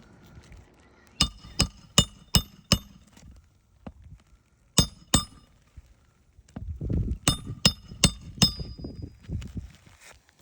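Sharp metal-on-metal strikes, each with a short high ring: five fairly even taps, then two, then four more with low rumbling handling noise around them, as of a hammer striking a metal tool or nail during shingle repair.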